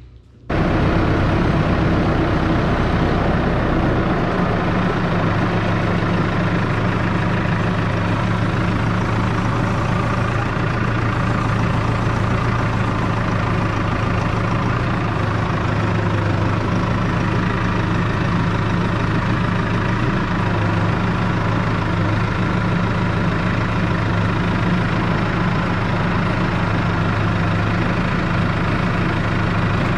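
Engine of a front-loader tractor running steadily, heard from the operator's seat; it cuts in abruptly about half a second in.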